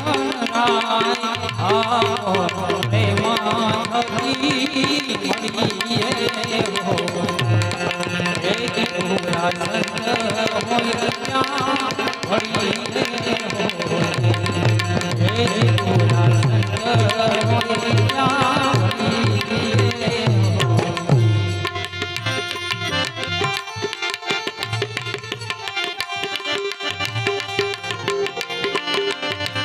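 Gujarati bhajan music: tabla keeping a steady rhythm under a harmonium melody. The upper melodic part thins out about two-thirds of the way through, leaving mostly the drum pattern and a lighter line.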